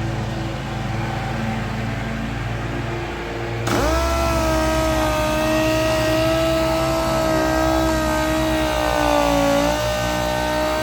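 A low hum, then about four seconds in a dual-action sander starts with a quick rising whine and runs at a steady pitch over a hiss, the pitch sagging briefly near the end before picking back up.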